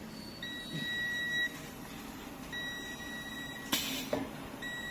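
An electronic beeper sounding a steady high-pitched tone on and off: about one-second beeps with roughly one-second gaps. A short sharp burst of noise cuts in about three-quarters of the way through.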